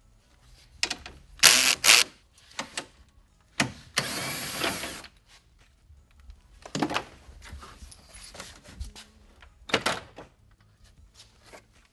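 Plastic push clips snapping loose and the plastic grille shell knocking and scraping as it is tugged off a pickup's front end. There are sharp snaps about a second and a half in, a rattling scrape lasting about a second around four seconds in, and single clicks near seven and ten seconds.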